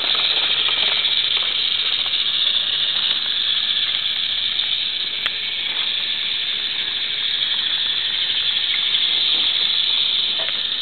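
Battery-powered GeoTrax toy train running along its plastic track: a steady whirring rattle from its small motor and gears, with a few faint clicks.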